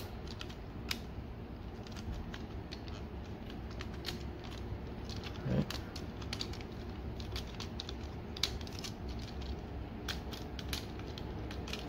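Irregular small plastic clicks and taps from a Transformers Masterpiece MP-26 Road Rage figure's parts being unpegged and shifted by hand as it is transformed from car to robot mode, over a low steady background noise.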